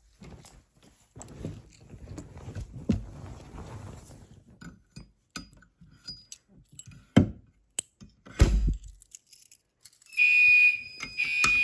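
Rustling and handling noises with a couple of thumps, then, about ten seconds in, a fire alarm speaker starts a high, pulsing alert tone: the evacuation signal that leads into its spoken message.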